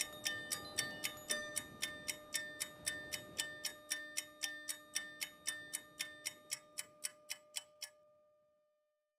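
Clock-like ticking, about three ticks a second, that quickens and fades and stops about eight seconds in. A faint held tone rings on under it and dies away just after.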